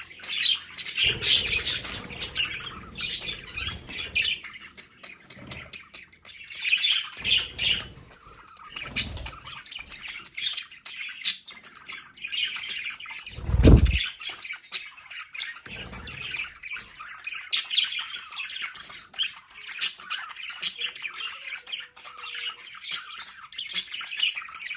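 A flock of pet budgerigars chattering and squawking continuously, with a few low thumps, the loudest a little past the middle.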